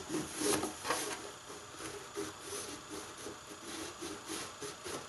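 A stick of chalk scratching along the edge of a cardboard template onto jute seat webbing, in a run of short strokes as a reference line is marked.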